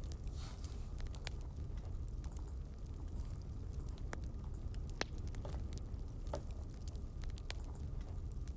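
Scattered single light clicks, a dozen or so at irregular intervals, over a steady low hum.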